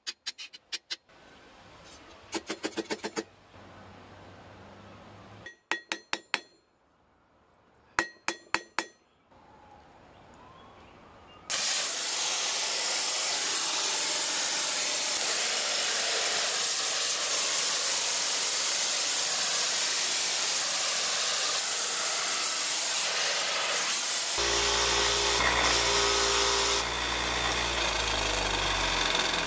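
Ringing hammer blows on red-hot steel, struck in quick runs of several blows with pauses between. Then a steady loud hiss sets in, and near the end a Delta bench grinder's motor starts with a low hum while the twisted steel bar is held to its wheel.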